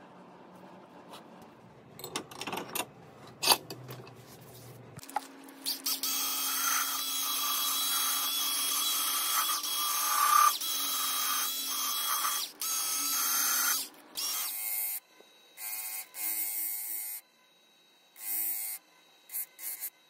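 Ridgid cordless rotary tool spinning a wire wheel against a rusty steel chisel, brushing off the rust: a steady hiss with a faint whine that starts about five seconds in, after a few knocks. Near the end the sound breaks into short, choppy stretches.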